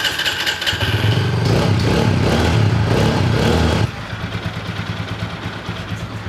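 TVS Apache RTR 200's single-cylinder engine starting up, running at raised revs for about three seconds, then dropping to a steady idle. The engine has just been rebuilt with a new crankshaft and balancer gear to cure an engine noise, and now sounds like a new bike.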